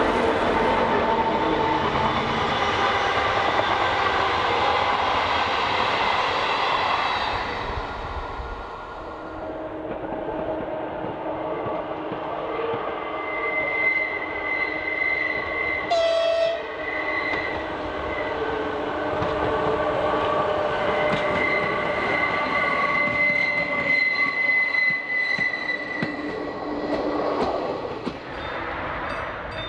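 Two diesel locomotives hauling passenger coaches pass close, their engines and wheels loud, fading away about eight seconds in. A second train, hauled by the Czech electric locomotive E 426 0001, then comes round a curve, with long high-pitched squealing tones and a brief sharp sound about halfway through.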